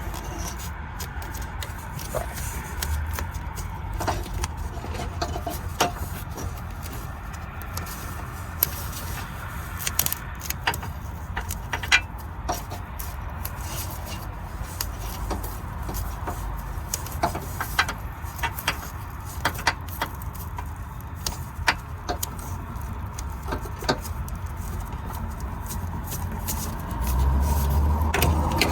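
Scattered clicks, rattles and rustles of hands working a wiring harness and foam tape, over a steady low hum.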